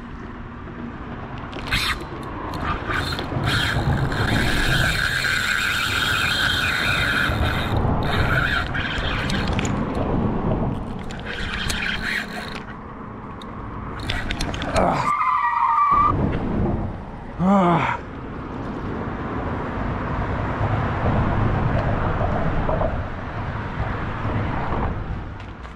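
Fishing reel's drag screaming in long bursts as a big fish runs off line on light tackle, over a steady rumbling background. Two short shouts from the angler come about halfway through.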